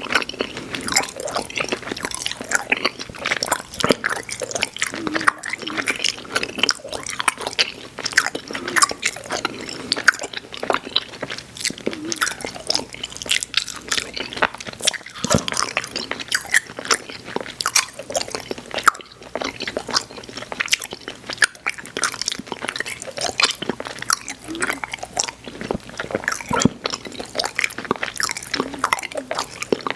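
Close-miked chewing of chewy Airheads Xtremes sour candy: continuous wet mouth sounds with many small clicks and smacks, no pauses.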